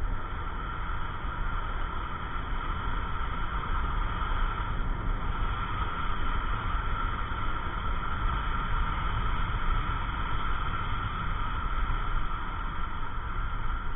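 Yamaha NMAX 155 scooter riding at a steady speed: its single-cylinder four-stroke engine running with a constant hum, under a steady rumble of wind and road noise.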